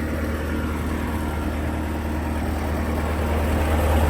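Bobcat T650 skid steer's diesel engine idling steadily with a deep, even hum, growing slightly louder near the end.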